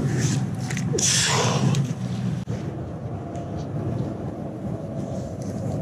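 A strong magnet on a rope thrown out and splashing into the river about a second in, over a steady low rumble.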